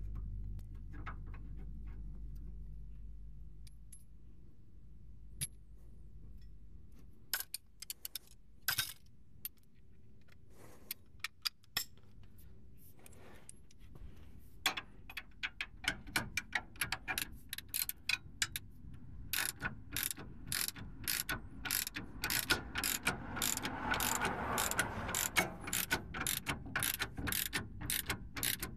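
Hand ratchet wrench clicking while tightening the lower mount of a truck's rear shock absorber: a few scattered clicks at first, then a long run of quick, even clicks from about halfway in.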